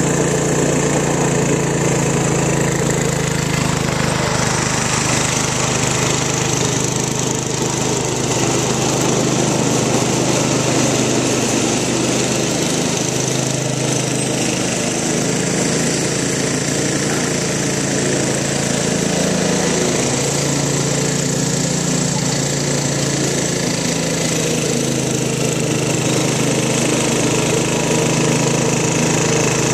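John Deere 112 lawn tractor's Kohler single-cylinder engine running steadily while mowing, its note wavering a little in pitch midway as the load changes.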